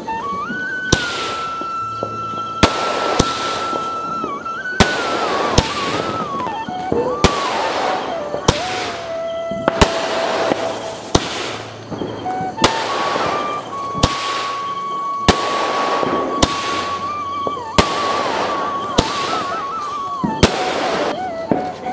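Fireworks going off in quick succession, a sharp bang about once a second, each followed by a brief crackling spray of sparks. A held melody of background music runs underneath.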